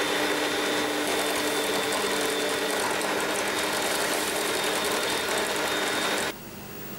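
Electric stand mixer running steadily with a constant whir, its beaters whipping egg whites and sugar into a meringue foam. The motor sound cuts off about six seconds in.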